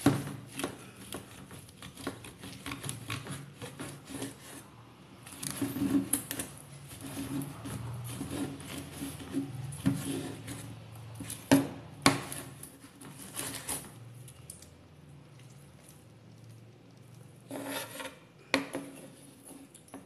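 Large chef's knife cutting through a roast pork knuckle's crisp crackling skin on a wooden cutting board: irregular crunching and scraping, with sharp knocks of the blade and carving fork against the board and bone, the loudest a little past halfway. A faint low hum runs underneath.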